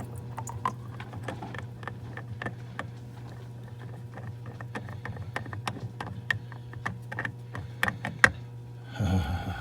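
Irregular small clicks and taps of hands and tools working a loosened spin-on diesel fuel filter free, with one sharper knock a little after eight seconds, over a steady low hum.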